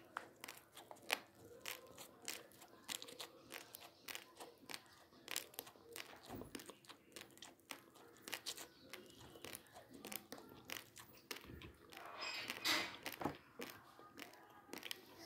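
Dry, uncooked basmati rice grains crunched between the teeth: a steady run of sharp little cracks. Near the end the plastic rice packet crinkles.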